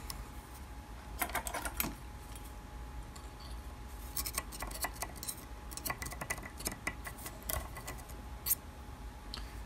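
Light, irregular metallic ticks and scrapes of a thin steel tool working in a small grub-screw hole beside the bronze nut of a lathe tailstock barrel held in a vise. A few clicks come about a second in, then a longer scattered run of ticks from about four seconds to near the end.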